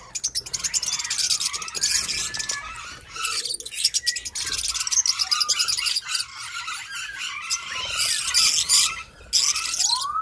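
A flock of lovebirds chattering: many quick, high-pitched chirps overlapping almost without a break.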